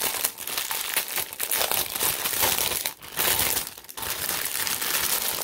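Plastic packaging crinkling as it is handled, a near-continuous run of crackles broken by two short pauses.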